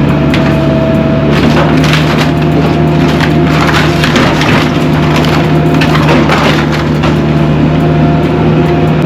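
Wood cracking and splintering again and again as demolition debris is crushed, over the steady running of a Caterpillar 305E2 mini excavator's diesel engine.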